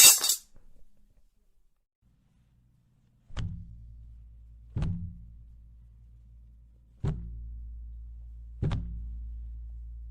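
Sound-effect thuds of a body falling onto the floor: four sharp, heavy impacts a second or two apart, each followed by a short low boom, over a low steady hum. The tail of a glass crash is heard at the very start.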